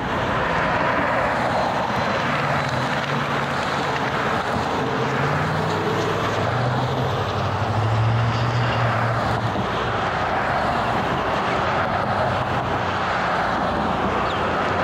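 Motor vehicles driving past on a road: a steady roar of traffic and road noise, with an engine hum that drops in pitch as a vehicle goes by around the middle.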